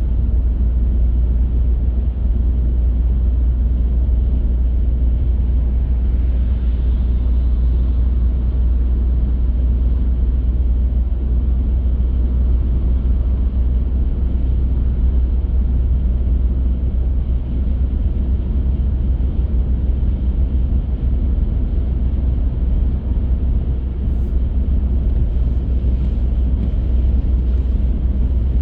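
Car driving at a steady pace: a constant deep rumble of tyres and engine on the road, with no sudden events.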